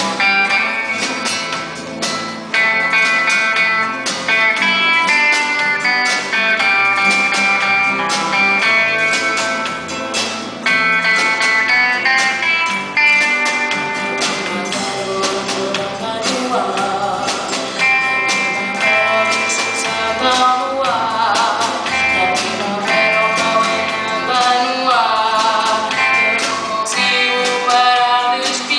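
Live music: guitar playing a melody of plucked notes, joined about halfway through by a voice singing with vibrato.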